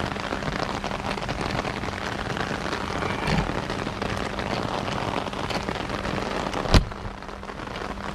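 Steady rain falling on the trailer, with a soft knock a few seconds in and a sharp clunk about two-thirds of the way through as the newly installed trailer door lock is worked with its key.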